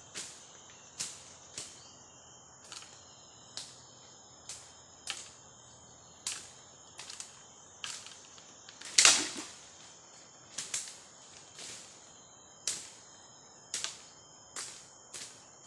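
A blade chopping at bamboo: about twenty sharp, irregular strikes, one much louder about nine seconds in. A steady high insect drone runs underneath.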